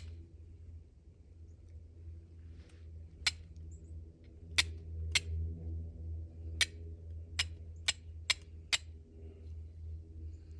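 A steel fire striker struck against flint, about eight sharp strikes at uneven intervals starting about three seconds in, throwing sparks to light char cloth and fatwood shavings. A low steady hum runs underneath.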